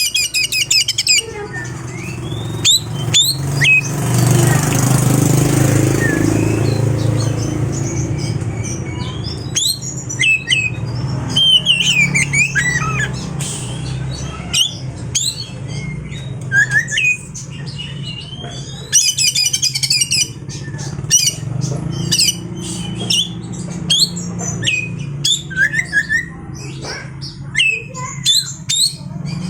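Oriental magpie-robin singing a varied song of short whistles, chirps and rapid rattling trills, over a steady low hum. A rushing noise swells and fades about four to seven seconds in.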